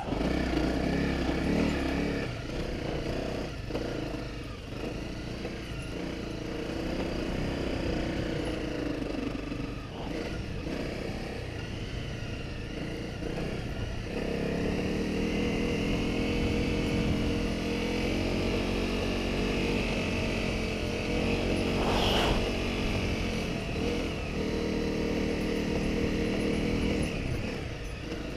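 Honda CRF250 Rally motorcycle engine running under way on a sandy track. Its pitch rises and falls with the throttle in the first half, then holds steady from about halfway. A single sharp click comes about three quarters through.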